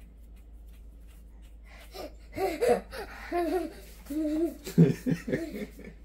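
Laughter in several short bursts, beginning about two seconds in.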